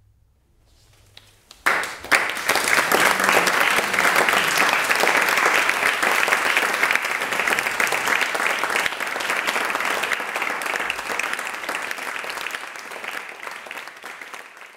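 Audience applause: a dense clatter of many hands clapping that starts suddenly about two seconds in and tapers off near the end.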